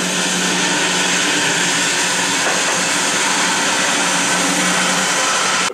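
Steady whooshing noise of a running motor with a low hum, holding even throughout and cutting off suddenly at the end.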